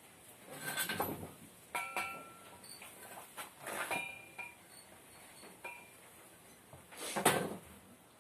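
Workshop handling sounds: several scrapes and knocks, some with brief metallic ringing, the loudest near the end.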